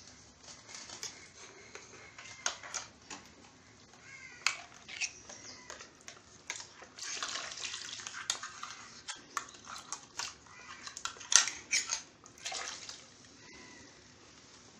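Water and leftover ground coconut masala poured from a steel mixer-grinder jar into an earthenware curry pot, with a short pour about halfway through. Around it, the jar and a wooden spatula knock and scrape on the clay pot's rim as the jar is scraped clean.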